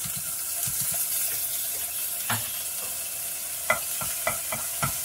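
Minced garlic sizzling in hot cooking oil in a frying pan, stirred with a wooden spatula. Over the steady sizzle come a few sharp knocks of the spatula against the pan, most of them in the second half.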